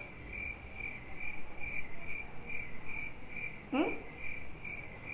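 Cricket chirping sound effect, a steady chirp repeating about two and a half times a second, the comedy cue for an awkward silence. A short rising whistle-like glide comes about three-quarters of the way through.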